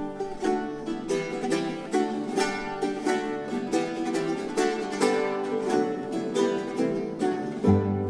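Background music: a tune of quickly picked notes on plucked strings, with a bass line coming in near the end.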